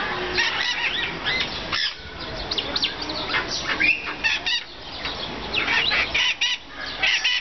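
Many short, high-pitched chirping calls from animals in the enclosure, coming in quick overlapping runs.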